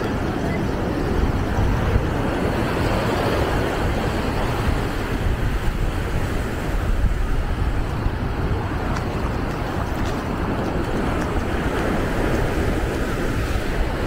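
Wind buffeting the microphone over the steady rush of surf breaking on the shore, an even, rumbling noise with no distinct events.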